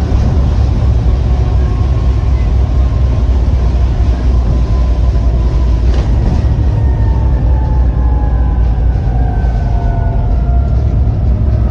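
Volvo B7TL double-decker bus under way, its six-cylinder Volvo D7C diesel running with a steady low drone. From about halfway through, a whine falls slowly in pitch.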